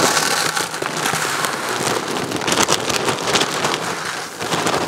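Dry cat food kibble pouring from a plastic bag into a white plastic five-gallon bucket: a dense, rain-like rattle of pellets hitting the plastic. The flow eases briefly about four and a half seconds in, then picks up again.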